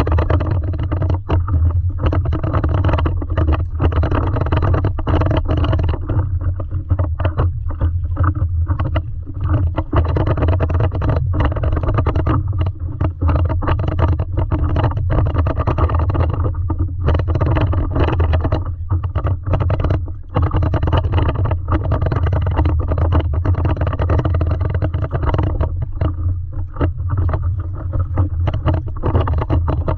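Stand-up paddleboard on open water: a steady, loud low rumble of wind on the microphone, with a splashy hiss of water around the board that keeps breaking off and coming back.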